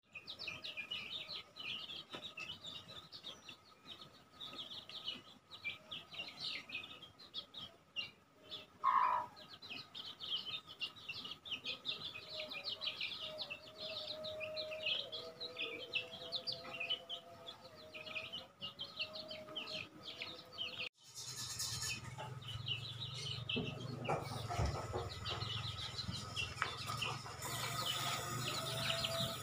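Village chicken chicks peeping constantly in quick, high chirps, with one louder call about 9 s in. About two-thirds of the way through the sound changes suddenly and a steady low hum joins the chicks.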